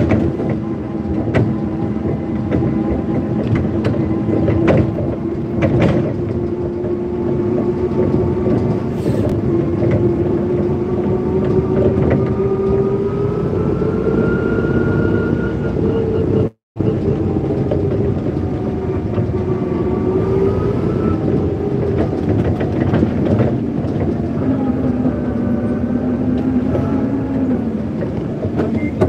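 Forklift running under way: a steady hum with a whine that slowly climbs in pitch, then drops back, as the truck is driven and its levers worked, with a few sharp knocks in the first several seconds. The sound cuts out for a moment just past halfway.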